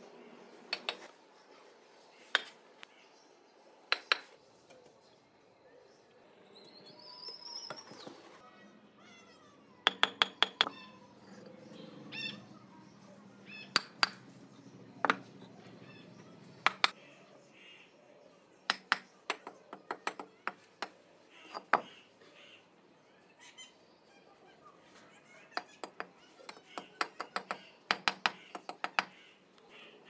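Sharp knocks and clinks of red clay bricks being set in cement mortar and tapped down with a hammer, some single and some in quick runs of several. A bird gives a short rising call about seven seconds in.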